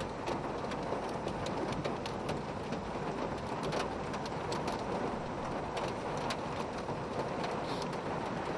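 Heavy rain falling steadily, with frequent sharp ticks of drops striking close by, heard from inside a car.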